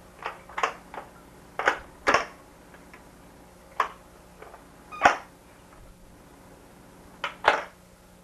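Irregular hard plastic clacks and clicks from a toddler's pop-up toy as its buttons are pressed and the pop-up figures and lids snap, about ten in all, several in quick pairs.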